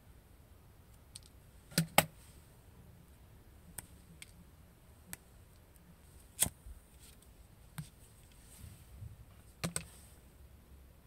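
Small scissors snipping and nicking the insulation of a thin headphone wire: scattered short sharp clicks, the loudest a close pair about two seconds in, with a few fainter ones spread through the rest.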